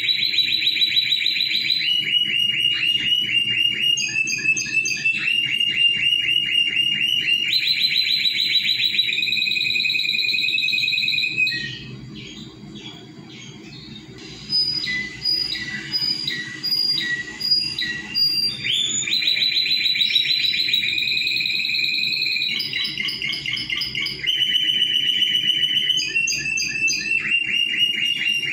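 Timbrado Español canary singing: long rolls of rapidly repeated high notes, each phrase held for a second or two before switching to another. Near the middle the rolls stop for several seconds and softer, scattered notes come in before the rolling song resumes.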